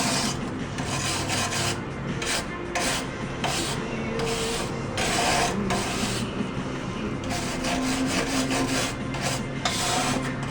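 Flux-core wire-feed welder crackling in short runs that stop and start several times, over a steady low hum.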